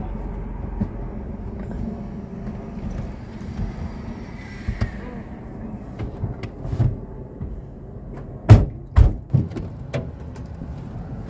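Steady low rumble of an idling vehicle with scattered light knocks. About two-thirds through come three heavy thumps in quick succession, the first the loudest.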